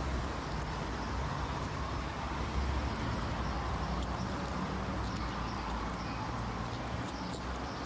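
Outdoor background noise: a steady low rumble, with a few faint clicks or taps here and there.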